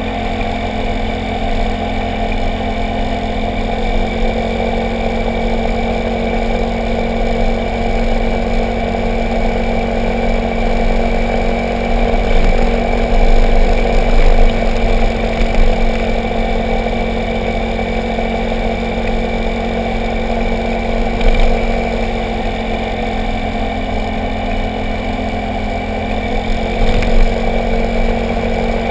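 Motorcycle engine running steadily at road speed, its note rising and falling a little, under low wind rumble and tyre noise picked up by a camera mounted low by the front wheel. A few brief louder bumps come through along the way.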